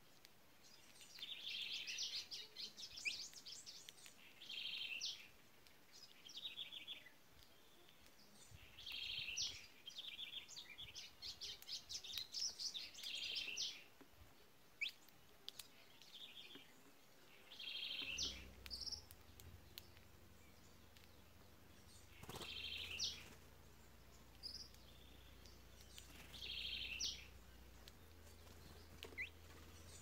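Songbirds singing in short, rapid trilled phrases, one burst every few seconds.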